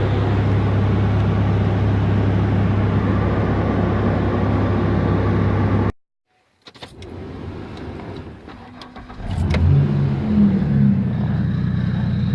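Ford truck engine running steadily for about six seconds, then cutting off abruptly. A few clicks and knocks follow, and about three seconds later the engine starts, revs briefly and settles into a steady idle.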